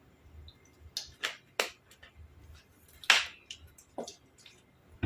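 Eating noises from a mouthful of spicy seafood papaya salad: a string of sharp mouth smacks and chewing clicks, about seven in all. The loudest comes about three seconds in.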